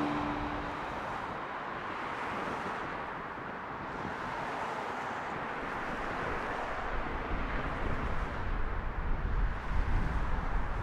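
Steady outdoor background noise, an even hiss with no distinct events, with a low rumble that grows over the last few seconds.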